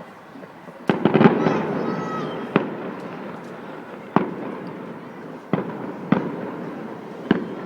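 Fireworks exploding: a quick cluster of sharp bangs about a second in, followed by a rumbling crackle, then single booms every second or so, each trailing off in echo.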